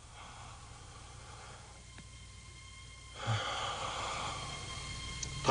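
Exaggerated, amplified breathing of a patient under an anaesthesia mask, played as a comic sound effect: two long, noisy breaths, the second louder.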